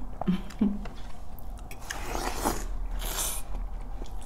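Close-miked eating of fresh watermelon slices: biting into the flesh and chewing, in a few separate bursts.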